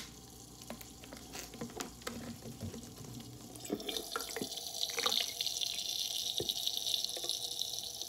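Water poured from a plastic bottle into a small tabletop fountain's basin, splashing and trickling. A sharp click comes right at the start, then light drips, and the pour grows louder and steady about four seconds in.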